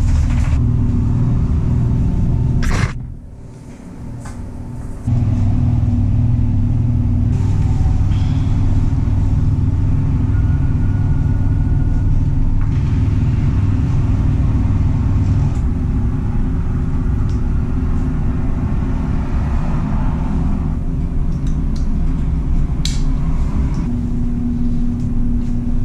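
Dog wash station machinery running with a loud, steady low rumble and hum; it drops off for about two seconds a few seconds in, then comes back. A few light clicks near the end.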